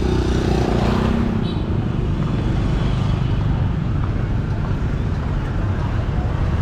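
Street traffic: a steady low rumble of engines and passing vehicles, with a motorbike engine passing close during the first second or so.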